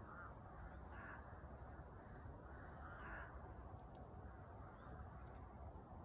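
Crows cawing faintly in the distance: a short caw at the start, another about a second in and a longer caw around three seconds in, over a steady low background rumble.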